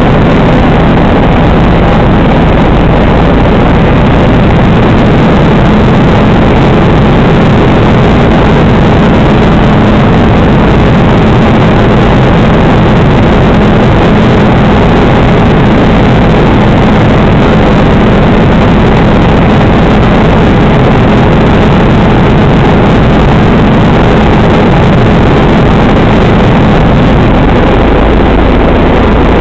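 Passenger-cabin noise of a helicopter in flight: the engine and rotors make a loud, steady drone with a low, even hum underneath.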